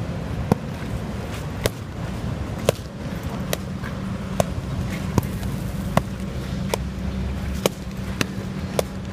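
An arnis stick striking padded focus mitts: about eleven sharp smacks, roughly one a second, over a steady low hum.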